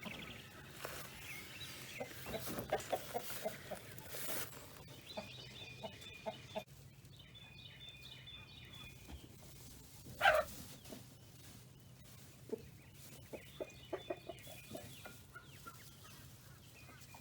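Chickens clucking in short, scattered calls, with one louder squawk about ten seconds in.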